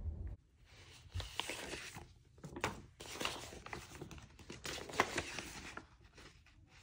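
Sheets of vinyl wall decals on paper backing being handled and flipped, crinkling and crackling in irregular bursts, with a few sharp crackles.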